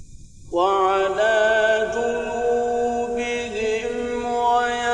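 A solo male voice chanting Quranic recitation in the melodic mujawwad style. It enters about half a second in and draws out long, held notes with wavering ornaments, stepping between pitches.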